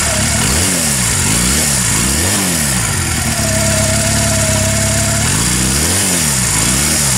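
Motorcycle engine being revved with the throttle: a few quick blips up and back down, a couple of seconds at a steady idle with a thin high whine over it, then two more blips near the end.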